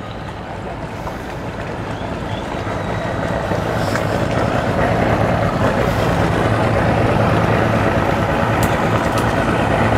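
Motorboat engine running, getting steadily louder as the boat comes closer.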